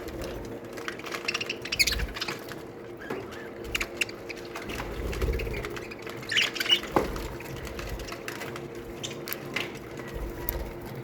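Budgerigars chirping and chattering in an aviary, with scattered clicks and scratches. Louder warbling calls come about two seconds in and again about six and a half seconds in, over a steady low hum.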